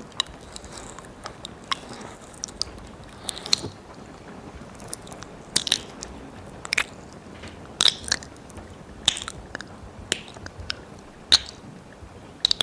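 Wet mouth and tongue sounds close against a binaural microphone's ear: irregular licking, smacking and sticky clicks, several a second.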